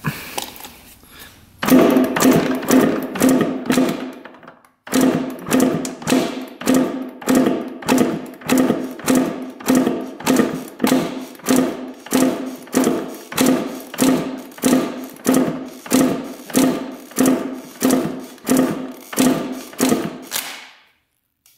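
1986 Honda CR125 two-stroke engine being kicked over repeatedly for a compression test, with a gauge in the spark-plug hole. It makes a regular beat of about one and a half strokes a second, with a short pause near the start.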